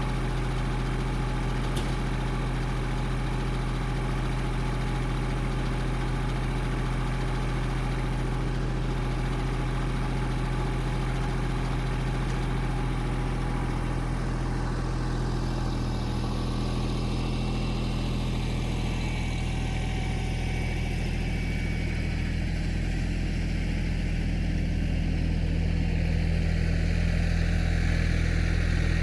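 An engine idling steadily, getting a little louder over the last few seconds, with a single click about two seconds in.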